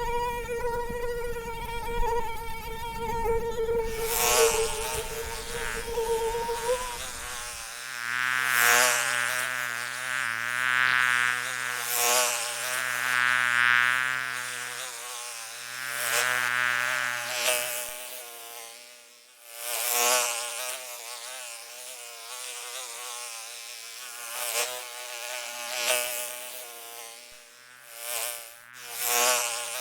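Mosquito whining in flight, a steady high buzz at first. From about eight seconds in, the pitch wavers and the buzz swells and fades again and again, with a deeper hum under it for a while in the middle.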